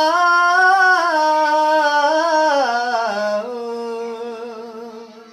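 A solo male voice sings a long drawn-out melisma in Punjabi qawwali-style, stepping down in pitch. It settles on a low held note, which fades away near the end.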